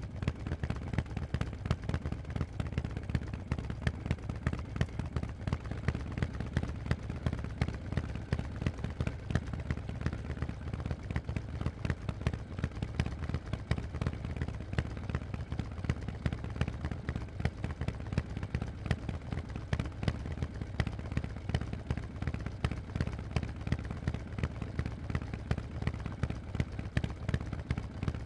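Harley-Davidson Forty-Eight's air-cooled 1200 cc V-twin running through Vance & Hines exhausts, a steady rapid run of exhaust pulses with no rise or fall in revs.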